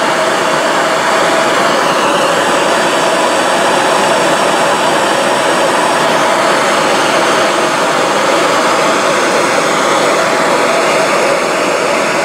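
Handheld hose-fed gas torch burning with a steady hiss, its flame playing on a brass strip held in a vise to heat it soft enough to bend. A faint steady whistle sits in the flame noise.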